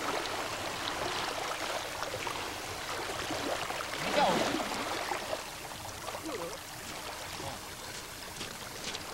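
Steady rushing and lapping of lake water around a wading angler, with a brief louder wavering sound about four seconds in.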